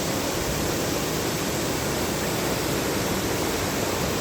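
Waterfall rushing: a loud, steady, even roar of falling water with no change throughout.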